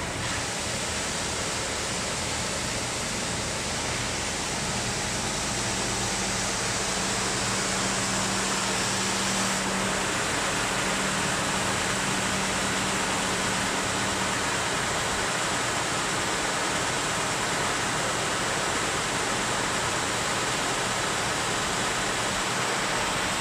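MNTOOLS two-head wide-belt sanding machine running, a loud steady rushing hiss of the abrasive belts working a laminated board. A low hum joins in for several seconds in the middle.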